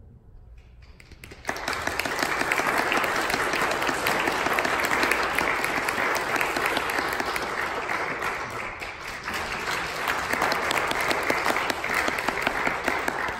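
Audience applauding, starting about a second and a half in and tapering off near the end.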